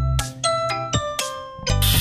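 Background music with bell-like mallet notes over a bass line. Near the end a steady rasping tool noise comes in under the music.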